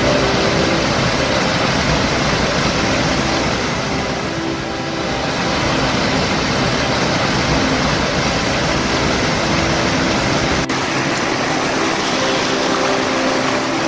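Small waterfall and river rushing: a loud, steady hiss of falling water, with a brief drop-out about three-quarters of the way through.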